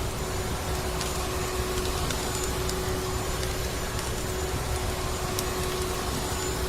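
Vacuum cleaner motor running steadily with a constant hum, mixed with a steady rushing of snowstorm wind and sparse faint crackles of a wood fire.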